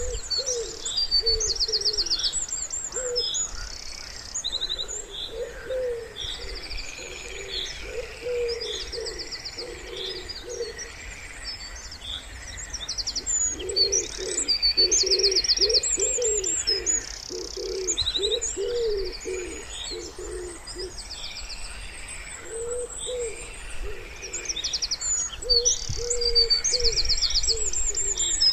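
Wood pigeons cooing in repeated low phrases, with small songbirds singing fast high trills and chirps over them. A faint low rumble sits underneath.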